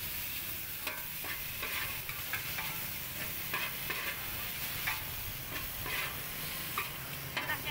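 Metal spatula scraping and tossing fried noodles and greens across a large, shallow steel pan, in uneven strokes about twice a second, over the steady sizzle of hot oil.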